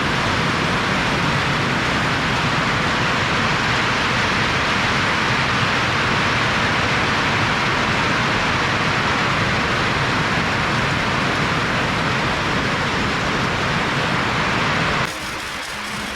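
Heavy rain falling steadily in a dense, even hiss. It cuts off suddenly near the end.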